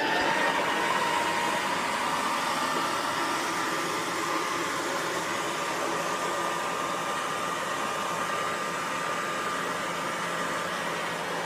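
Haier robot vacuum cleaner running: its suction motor starts up abruptly and runs steadily, a high whine over a broad rushing hiss.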